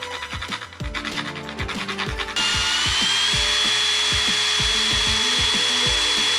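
A small power tool starts a couple of seconds in and runs with a loud, high whine that rises briefly as it spins up, then holds steady. Before it starts there is rubbing and scratching. Background music with a steady beat plays throughout.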